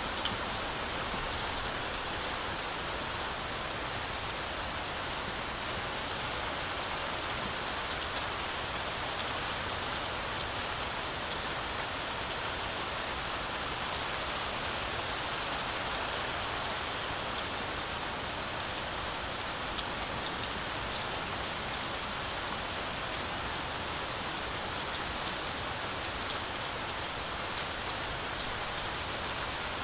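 Steady heavy rain falling through a forest canopy, a dense even hiss of rainfall with faint scattered drop ticks.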